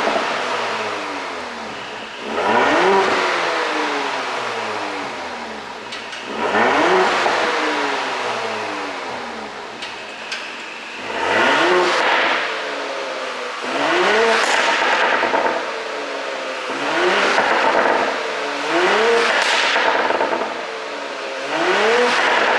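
Porsche Cayenne 3.0-litre turbo V6 revved about seven times in quick blips. After each blip the revs fall away with popping and crackling from the exhaust on the overrun, the effect of a pop-and-bang ECU tune.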